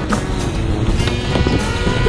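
Background music, a sustained-tone track with heavy low end, laid over the footage.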